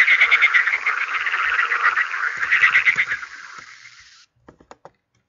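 Edible frog (green frog) calling in fast, rattling trains of croaks, which fade and stop a little after four seconds in.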